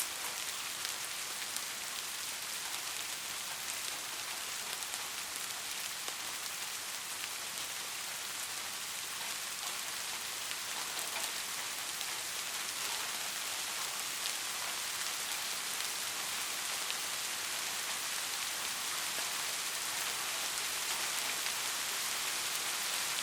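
Steady rain falling on a surface, an even hiss with many fine, crisp drop impacts.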